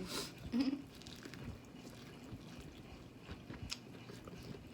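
Quiet eating at a seafood boil: a short rustle right at the start, then faint chewing and scattered light clicks of shells and utensils.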